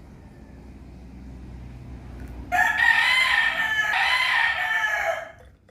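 A rooster crowing once, a loud call of nearly three seconds that starts about two and a half seconds in and rises and falls twice in pitch before cutting off.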